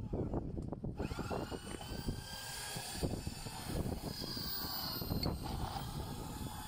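Low, uneven rumble of wind buffeting the microphone on an open ship's deck.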